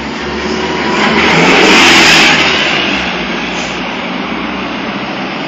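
A road vehicle passing close by on a city street, its engine and tyre noise swelling to a peak about two seconds in and then fading back into steady street traffic.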